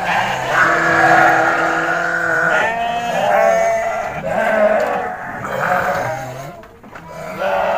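Several sheep bleating, their calls overlapping one after another, with one long held bleat starting about half a second in; the calls let up briefly near the end.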